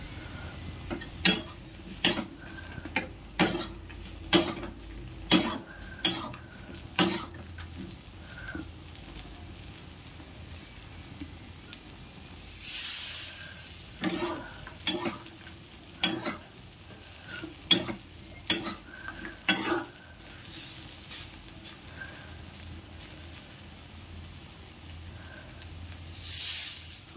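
Flat metal spatula knocking and scraping against a kadai as potato and pointed gourd slices are stir-fried, in sharp strokes about once a second with a pause mid-way. A sizzle runs beneath, with two longer bursts of hiss, one near the middle and one near the end.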